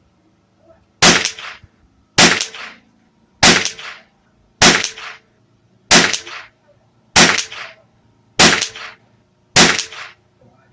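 Bergara B14R .22 LR rifle firing a string of eight shots of SK Pistol Match ammunition at an even pace, about one shot every 1.2 seconds, each a sharp crack with a short echo tail.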